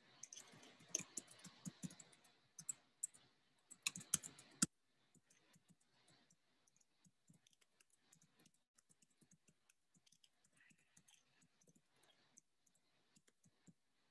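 Typing on a computer keyboard: quick key clicks, dense and louder for the first four and a half seconds, then a sudden drop to faint, scattered clicks.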